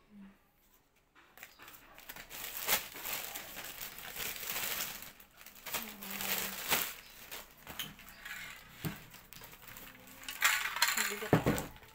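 Black plastic courier bag being crumpled and pulled off a parcel in repeated bursts of crinkling and rustling, then the cardboard box inside handled, with a dull thump near the end.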